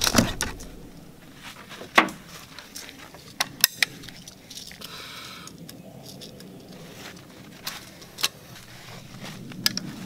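Loading a break-action single-shot .410 shotgun from a box of shells: a string of sharp metallic clicks and light knocks as shells are handled and the action is opened and snapped shut, the loudest click about two seconds in, with a brief rustle of the shell box around five seconds.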